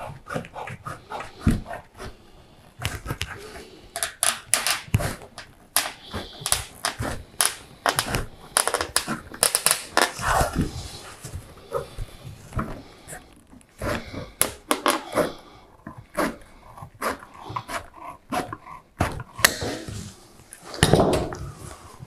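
Hand metal snips cutting a coated sheet-metal roofing panel: a rapid, irregular series of sharp clicks and crunches as the blades bite along the line, with the loose sheet rattling.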